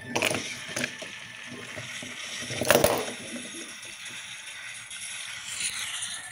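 Wooden toy train cars clattering as they tumble off a wooden track onto a plastic toy boat: a few sharp knocks in the first second, then a louder crash nearly three seconds in.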